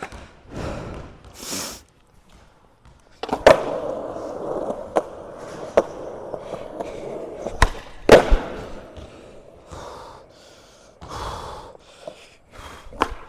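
Skateboard wheels rolling on concrete, with several sharp clacks of the board hitting the ground. The loudest clack comes about eight seconds in.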